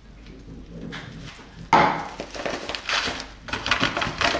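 Rolled oats pouring from a plastic bag into a plastic measuring cup: a dry rattling rush that starts suddenly about two seconds in, breaks off briefly, then resumes, with the bag crinkling.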